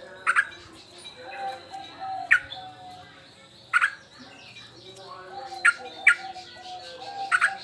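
Male yellow-vented bulbul (trucukan) calling in about six short, sharp, loud notes spaced a second or two apart, with softer, lower warbling in between.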